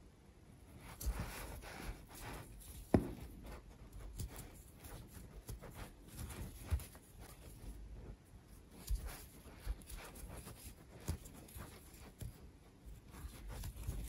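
Quiet handling sounds of crocheting: a metal crochet hook pulling yarn through stitches, with soft scratching and scattered small clicks and taps, the sharpest about three seconds in.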